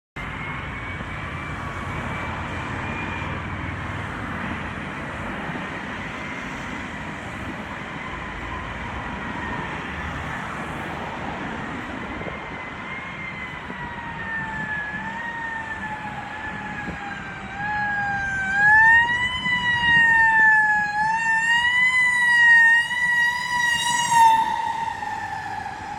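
Emergency vehicle siren sounding over a steady background rush. Its pitch drifts slowly down at first; about eighteen seconds in it grows much louder and starts rising and falling every second or two.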